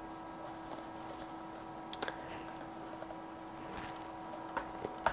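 Faint handling noise from plastic FPV goggles being turned in the hand: a few small clicks and taps, about 2 seconds in and twice near the end, over a steady faint hum.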